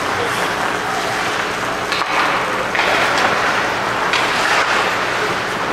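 Ice hockey play: skates scraping and carving on the ice, with a couple of sharp knocks from sticks or the puck over steady arena noise.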